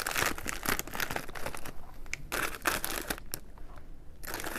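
Crinkling of a plastic Kancho snack bag being handled, in dense crackly bursts with a short lull a little after three seconds.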